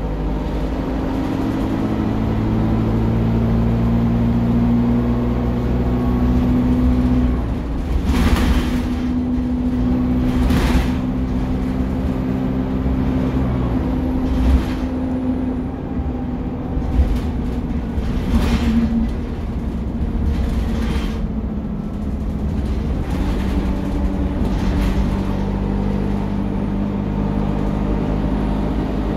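Alexander Dennis Enviro 200 (Dart SLF) single-deck bus running along, heard from inside the passenger saloon. The engine note falls and rises several times as the bus changes speed, with a few short knocks and rattles from the body.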